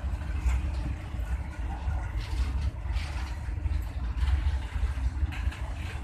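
A loaded container freight train's wagons rolling past on the next track: a steady low rumble with an occasional clatter of wheels on the rails.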